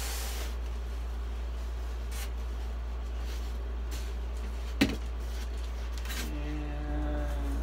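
Hands handling a polystyrene foam packing box, with faint rustling and scraping and one sharp click about five seconds in, over a steady low electrical hum. Near the end a short steady pitched tone sounds.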